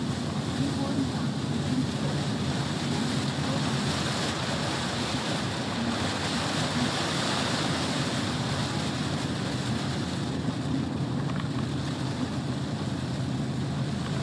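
Lorry driving at steady speed: a low engine drone under a constant rush of tyre and wind noise.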